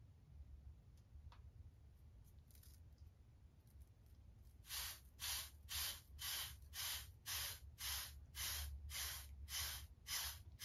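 Hard wave brush bristles swishing over short waved hair in steady, even strokes, about two a second, starting about four and a half seconds in.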